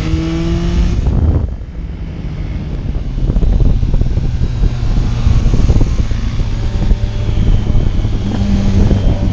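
Motorcycle engine rising in pitch under acceleration, then the throttle shut about a second in. The engine then runs on at a lower, steady pitch under heavy low rumble and noise, and a rising tone returns near the end.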